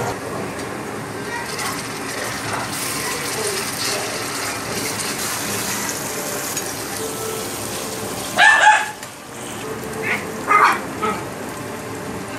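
Chopped onions sizzling steadily in hot oil in a kadhai as they are stirred and spices go in. From about eight and a half seconds in, several loud short calls cut in over the frying.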